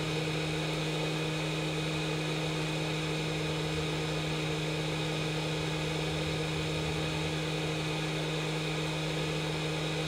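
A small electric motor humming steadily, with a constant low tone and an even whir that do not change.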